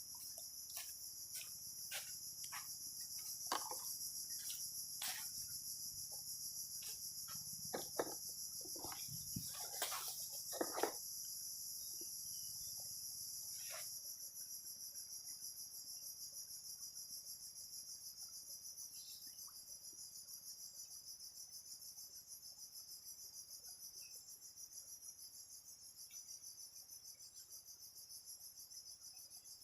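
Steady, high-pitched chorus of insects, finely pulsing. During the first half, a scatter of sharp clicks and knocks.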